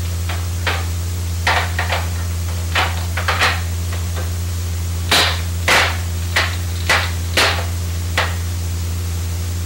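About a dozen irregular sharp knocks and clinks from a baby being spoon-fed at a high chair with toys on its tray, loudest in a cluster near the middle. A steady low hum runs under them.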